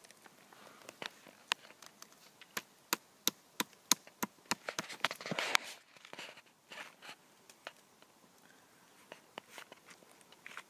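Close handling noise from a hand feeling a chicken of the woods bracket fungus: sharp clicks and crackles, several a second, thinning out after about six seconds.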